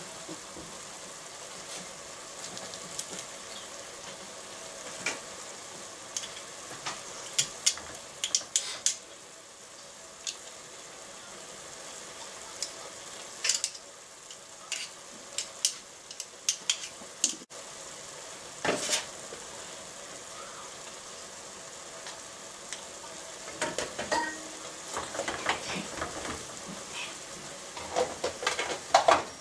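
Ground meat sizzling steadily in a pot, the sign that the liquid has cooked out of it. Scattered clicks come from a garlic press being squeezed over the pot, and near the end a spoon stirs and scrapes against the pot in quick clatters.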